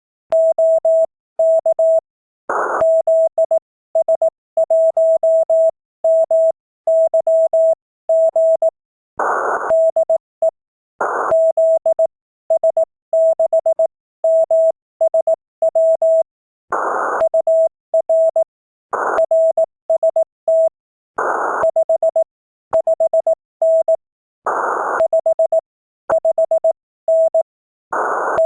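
Ham radio Morse code (CW) signal: a single steady tone keyed on and off into dits and dahs at a brisk sending speed. Short bursts of noise break in every couple of seconds.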